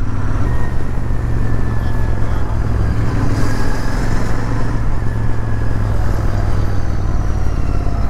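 Royal Enfield Interceptor 650's parallel-twin engine running steadily under way, a constant low hum mixed with wind and road noise.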